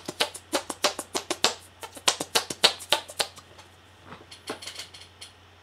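A rapid, irregular run of sharp clicks, several a second, growing fainter after about three seconds and ending on one louder click, over a low steady hum.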